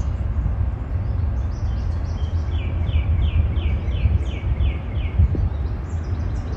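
Wind rumbling on the microphone, with songbirds calling over it: about two and a half seconds in, one bird gives a quick run of about eight short, falling notes, among scattered higher chirps.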